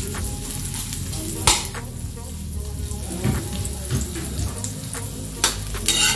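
Chopped onion sizzling in a little hot oil in a metal wok while a metal ladle stirs it, scraping and clinking against the pan with a sharp knock about a second and a half in and a couple more near the end.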